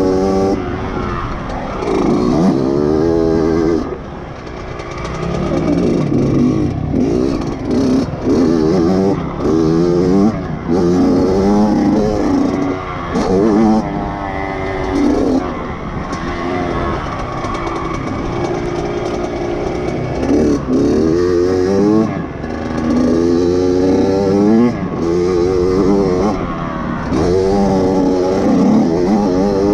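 Dirt bike engine revving hard and backing off over and over, its pitch climbing and dropping every second or two as the rider works the throttle around the motocross track.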